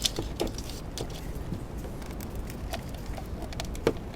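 A few light clicks and knocks from hands handling a multimeter and its test leads among engine-bay wiring, with one sharper knock near the end, over a low steady background.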